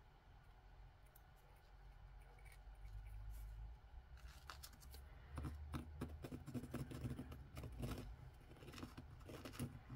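Faint clicks and scrapes of a metal awl point picking at a knot in a fine metal jewelry chain, with the small links clinking as they are worked loose. The clicks are sparse at first and come more often from about halfway through.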